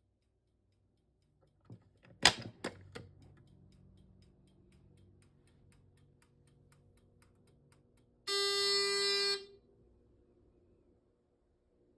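A few sharp mechanical clicks, then light ticking at about four ticks a second, then a single buzzy fire alarm horn blast lasting about a second, with a faint hum underneath.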